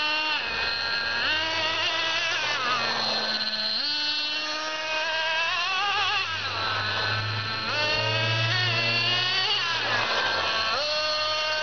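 Radio-controlled truck's motor running hard, its pitch rising several times as it accelerates and falling as it slows.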